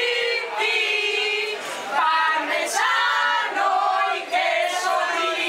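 A small group of women singing together unaccompanied, an impromptu a cappella chorus of several voices holding long notes.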